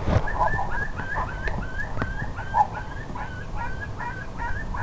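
Rapid, regular high-pitched coyote-type distress yelps, about three a second, each a short hooked cry.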